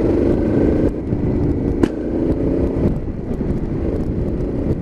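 Motorcycle engine running at steady road speed, heard from the rider's seat over a low road rumble. There is a short click about two seconds in.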